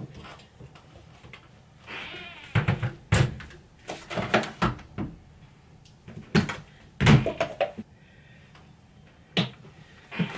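Irregular knocks and thumps from loading laundry into a front-loading washing machine: clothes pushed into the drum, a plastic detergent jug handled and the washer door shut.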